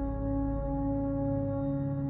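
Ambient music soundtrack: a slow drone of held, ringing tones over a deep bass, without a beat.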